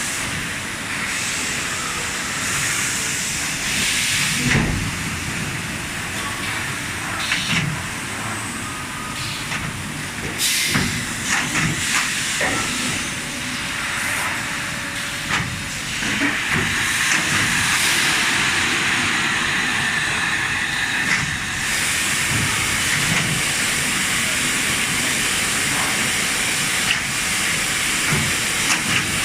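Factory machinery running: a steady hiss with scattered knocks and clicks, the hiss growing louder for several seconds about halfway through.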